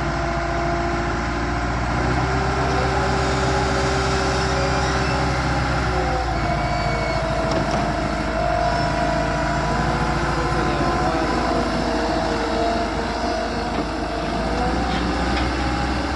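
Diesel engine of a self-loading concrete mixer running steadily, with a whine that shifts in pitch about six seconds in and again near the end.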